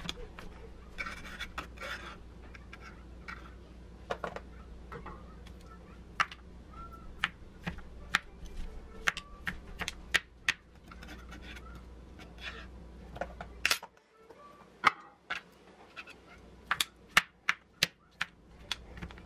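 Kitchen knife slicing a cooked chicken breast on a plastic cutting board: repeated sharp clicks and taps of the blade meeting the board, unevenly spaced. A faint steady hum sits underneath and drops out about two-thirds of the way through.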